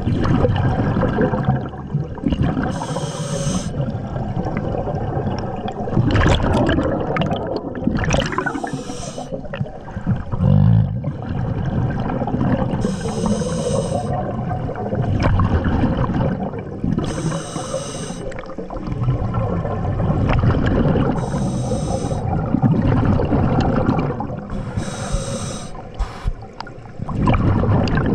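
Scuba diver breathing through a regulator underwater: a hissing inhalation about every four to five seconds, six times in all, each followed by a rumbling, gurgling rush of exhaled bubbles.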